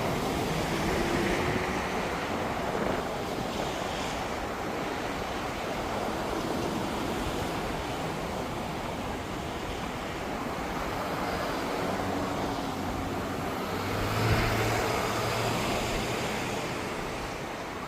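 Steady outdoor rushing noise, with no single clear source; a low hum swells briefly about fourteen seconds in.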